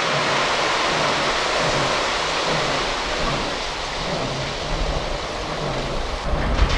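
Water gushing from a dewatering pump's discharge hose into the canal, a steady rush with a faint low pulsing under it. Some low rumbling thumps come near the end.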